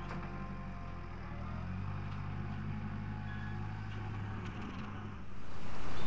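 Tractor engine running steadily, its pitch rising as it revs up about a second and a half in. Near the end a louder, even hiss takes over.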